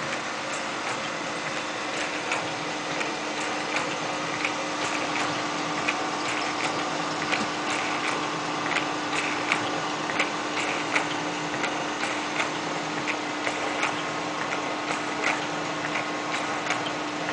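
Erweka suppository filling machine running: a steady motor hum with a low tone, and sharp clicks from its mechanism repeating about once a second.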